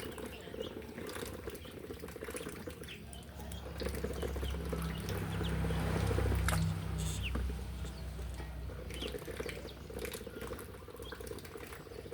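Steady running water with short, high peeps of ducklings scattered through it. A low rumble swells in the middle and fades again.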